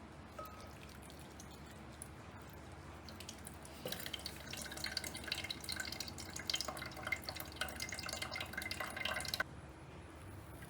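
Water running and splashing, with many small drips, for about five seconds; it starts suddenly a few seconds in and stops abruptly.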